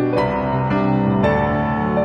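Soft background piano music, a slow, gentle tune with notes changing about every half second.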